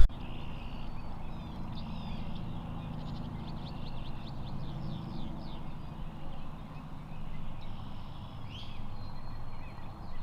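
Songbirds chirping faintly over a low, steady background rumble, with a quick run of chirps about three to five seconds in.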